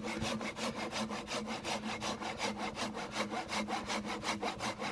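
Hand saw cutting through a log in quick, even back-and-forth strokes.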